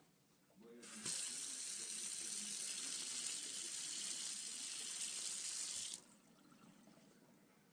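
Water running steadily from a tap, turned on about a second in and shut off about five seconds later.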